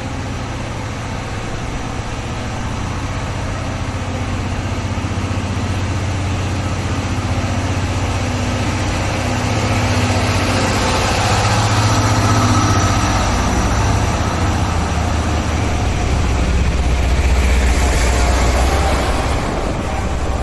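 A heavy engine runs with a low, steady drone, growing louder over the first dozen seconds and staying loud to the end.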